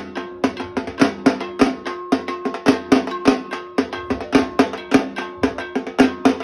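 Dhak, the large Bengali barrel drum, beaten with two thin sticks in a fast, even rhythm of about four to five strokes a second, each stroke ringing on a steady pitch. It is the visarjan (immersion) beat played at the end of Durga Puja.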